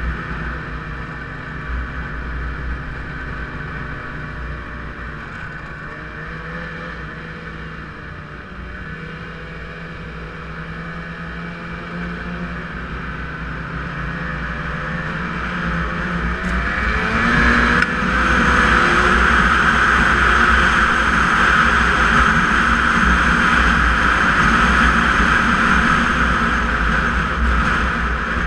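Snowmobile engine running along a trail with a low rumble underneath. About two-thirds of the way through it speeds up, rising in pitch, then holds steady, louder and higher.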